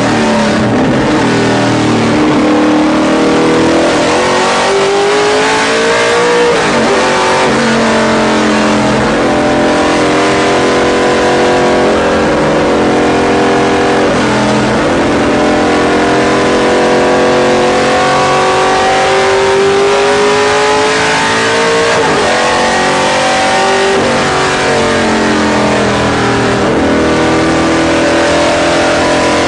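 Ford Mustang race car's engine, heard from inside the cockpit, pulling hard on track. Its pitch climbs steadily and then drops back at each gear change, several times over.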